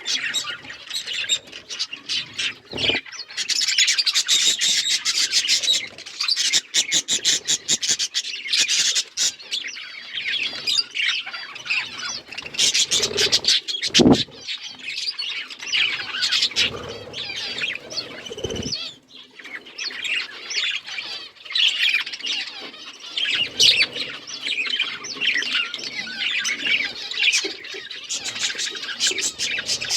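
Budgerigars chattering and chirping to each other in a continuous, busy high warble. A few brief low thumps come through now and then.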